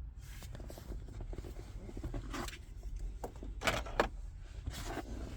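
Soft rustling and a few light clicks of handling, the sharpest about four seconds in.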